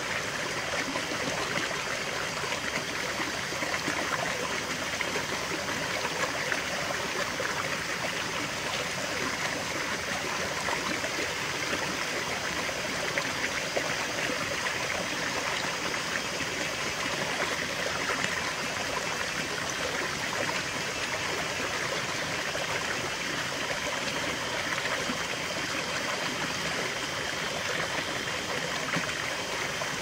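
Small rocky stream spilling down a low cascade between boulders into a shallow pool: steady babbling, splashing water.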